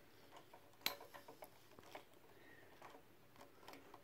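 Mostly quiet handling: one sharp click a little under a second in, then a few faint small clicks, as hands work at a tough plastic cable tie binding a power cord.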